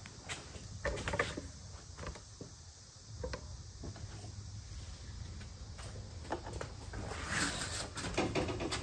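Handling noise: scattered light knocks, clicks and rustles, growing busier near the end as the small electric chainsaw is picked up, over a low steady hum.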